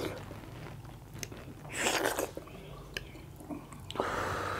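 Close-up eating sounds from people eating soft millet dhido and chicken curry with their fingers: chewing and wet mouth clicks, with a louder slurp about two seconds in.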